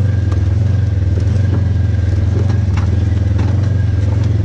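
Polaris RZR side-by-side's engine running at a steady pace, with scattered clicks and rattles.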